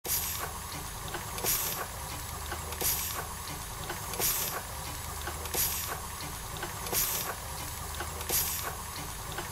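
Steam engine running slowly, a hiss of escaping steam about every one and a half seconds, with light ticks between the puffs over a low steady rumble.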